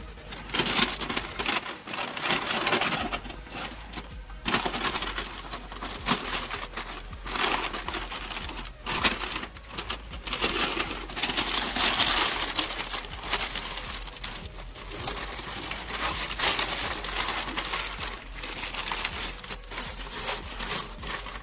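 Butcher paper crinkling and rustling in irregular bursts of a second or two as wrapped meat is handled and shifted on a smoker's metal grate.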